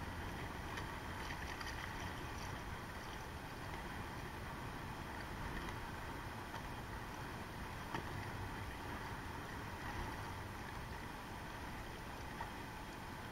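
Steady noise of wind and choppy open-ocean water, with no distinct events.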